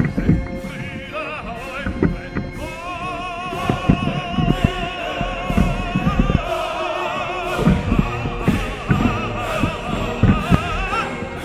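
Music with operatic singing, a voice holding wavering vibrato notes over an orchestral backing.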